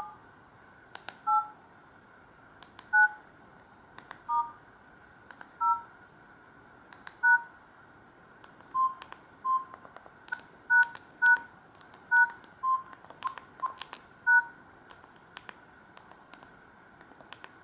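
Samsung GT-E2152 mobile phone keypad giving touch-tone (DTMF) beeps as keys are pressed one at a time. There are about fifteen short two-note beeps at uneven intervals, each with a light key click. The beeps stop about three seconds before the end, leaving only faint clicks.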